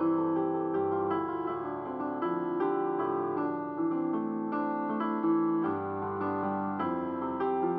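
Background piano music, a slow, gentle improvisation with sustained chords and notes.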